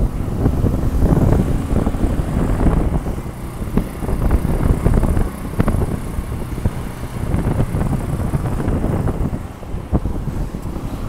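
Motorcycle riding: wind buffeting the microphone, with engine and road noise underneath in a steady, fluttering rumble.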